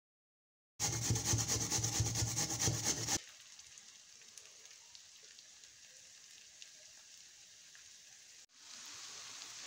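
Raw potato grated on a hand grater: fast, rasping strokes for about two and a half seconds, stopping abruptly. After a faint stretch, a steady, quiet hiss comes in near the end.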